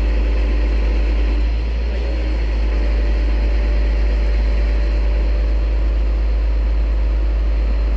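Mobile crane's engine running steadily during the lift: a constant low rumble with a steady hum over it.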